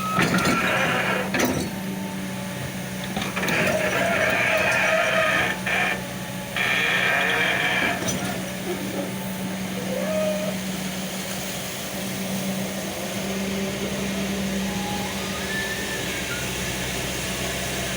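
Kobelco excavator running with a steady engine hum. Over it, a loud, high whine rises briefly at the start and again from about three to eight seconds in, breaking off twice near the end of that stretch.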